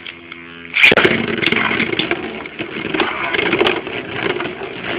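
Beyblade Zero-G spinning top whirring in a clear plastic bowl stadium. Under a second in, the sound turns into a loud, continuous rough scraping with scattered clicks.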